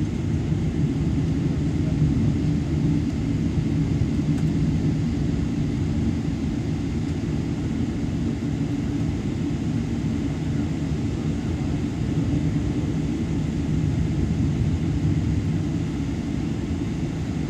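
Boeing 777-300ER cabin noise while taxiing: its GE90 engines running at low thrust, a steady low rumble with no spool-up.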